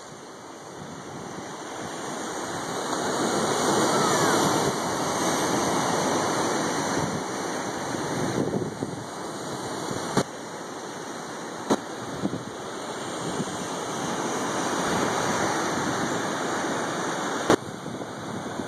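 Ocean surf breaking on the rocky shore below, a continuous wash that swells and eases over several seconds, with wind on the microphone and a few sharp clicks.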